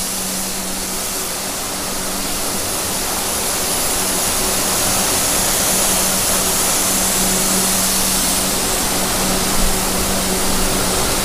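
Parcel conveyor belts in a package sorting warehouse running: a steady mechanical rush with a low, even hum, growing slightly louder.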